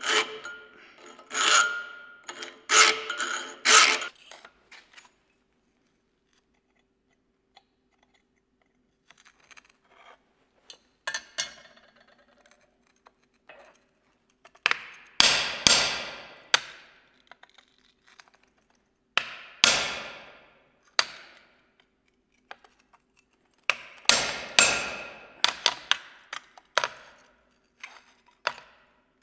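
A metal hand file rasping in about four strokes across small steel teeth held in a vise. After a pause, a hammer strikes a chisel held on red-hot steel resting on a steel plate, in three quick runs of blows, each blow ringing briefly: midway, a few seconds later, and near the end.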